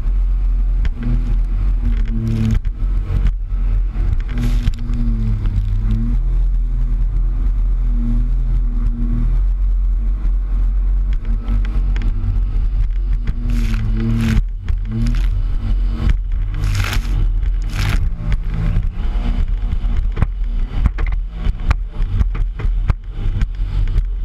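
Jet ski engine running, its pitch rising and falling, under a heavy low wind rumble, with many sharp knocks and splashes, more of them in the second half.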